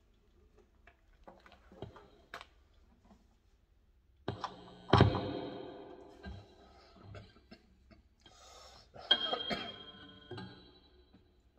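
Handling noise from a Gibson G45 Studio acoustic-electric guitar amplified through its Fishman pickup: scattered clicks and light knocks, a sharp thump about five seconds in with the strings ringing and fading after it, and another brief ring of the strings near nine seconds.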